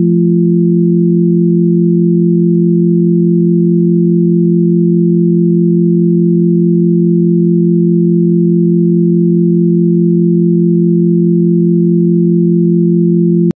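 Steady electronic drone of a few low pure sine tones held together as one unchanging chord, cutting off abruptly near the end.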